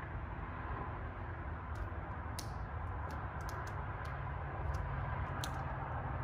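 Scattered light clicks and crinkles as fingers press and position a tail-light tint overlay film against the lamp lens, over a steady low background rumble.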